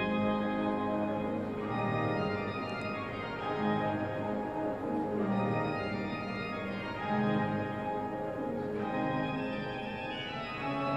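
Donato Del Piano's monumental pipe organ playing: sustained chords and moving lines of many notes sounding at once, without a break.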